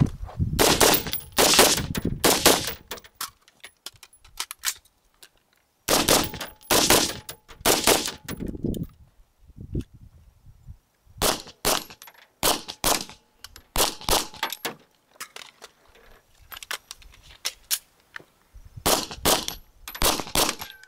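Gunshots fired in quick pairs. For roughly the first nine seconds they come from a BCM 11.5-inch short-barrelled AR-type carbine. After a short pause, from about eleven seconds on, they come from a 9 mm Glock 17 pistol.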